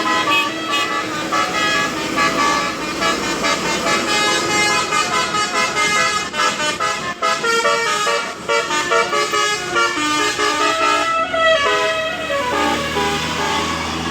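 Basuri "telolet" multi-tone bus horn playing a melody in quick stepped notes, ending in sliding, siren-like tones in the last couple of seconds.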